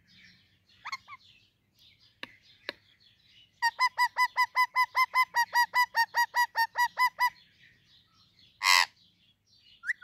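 Indian ringneck parrot calling: a fast run of about twenty identical short calls, roughly five a second, lasting a few seconds, then one loud harsh squawk near the end. A brief call and two faint clicks come earlier.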